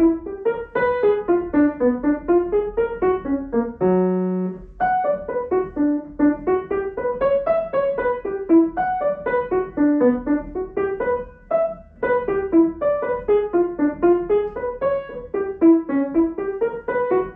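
Grand piano played solo: quick runs of notes rising and falling in repeated waves, with one chord held about four seconds in and a brief break a little after eleven seconds.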